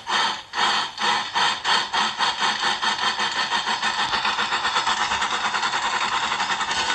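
Cartoon steam locomotive sound effect: chuffing that starts slow and speeds up to a fast, steady beat of about five chuffs a second as the train gets under way.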